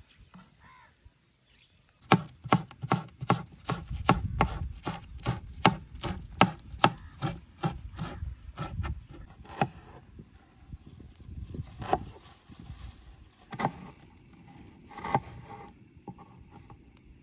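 A quick run of sharp knocks, about three a second, starting about two seconds in and lasting some eight seconds, then a few scattered knocks.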